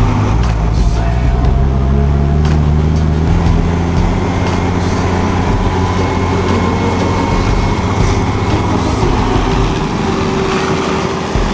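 Fendt 820 Vario tractor's diesel engine running under way across maize stubble while pulling a grain overloading wagon, its pitch rising a little a couple of seconds in.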